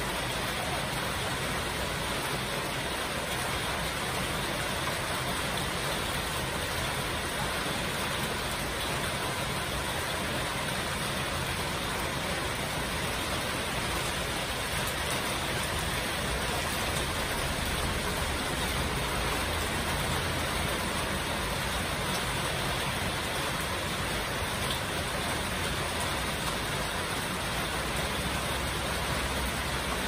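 Heavy rain pouring steadily, a dense even hiss with no let-up.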